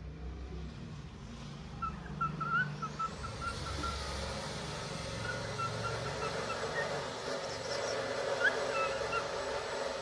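Cockatiel giving a quick run of short chirps about two seconds in, with a couple more near the end. A steady rushing noise with a low hum comes in about three seconds in and keeps going.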